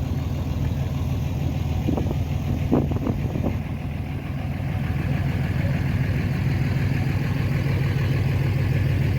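A car engine idling steadily with a low, even rumble.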